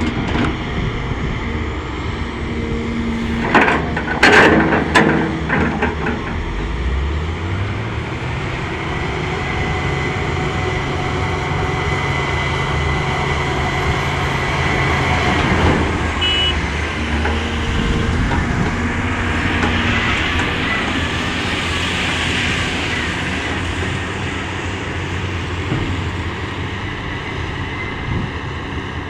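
Caterpillar 320D excavator's diesel engine running under hydraulic load, rising in pitch about seven seconds in as it revs up. A burst of loud knocking clatter comes about four seconds in.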